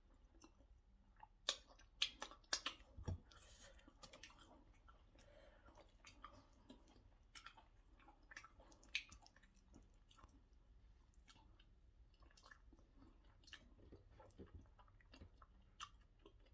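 Faint, close-miked chewing of white starch and egusi soup: soft, sticky mouth clicks and smacks, with a cluster of louder ones about two to three seconds in.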